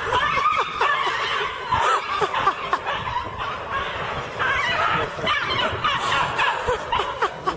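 A jumble of short, overlapping animal yelps and human laughter, many quick cries rising and falling in pitch.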